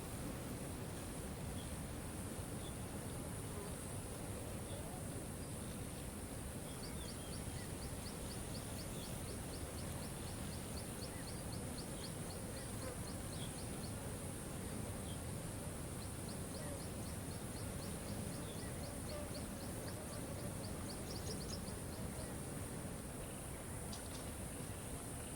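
Steady rush of a waterfall, with a high, steady insect hum above it. A rapid high ticking call, about four ticks a second, starts about seven seconds in and comes again in a second run in the middle, with a few short chirps scattered through.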